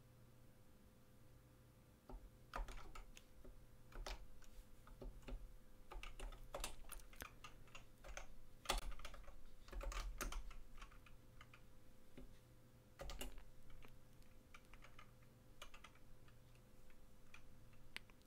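Typing on a computer keyboard: a faint, irregular run of key clicks starting about two seconds in.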